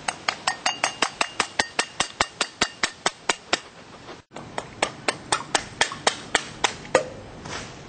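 A palm repeatedly slapping the mouth of a glass beer bottle, each slap a sharp pop, about four a second. There are two runs with a short break between them. The slaps are meant to drive a pressure pulse through the water-and-air-filled bottle hard enough to bust its bottom out.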